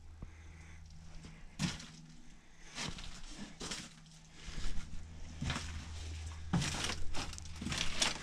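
Footsteps crunching over a debris-strewn floor: a series of irregular steps, louder from about halfway through.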